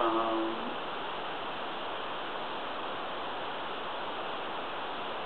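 Steady, even hiss of background recording noise with no other sound in it, after a short hesitant 'mm' from a man's voice at the very start.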